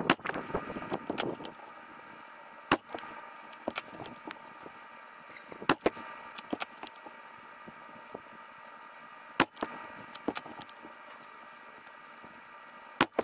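Thomas HP slug air rifle firing five sharp shots, about three to four seconds apart, with lighter mechanical clicks between them.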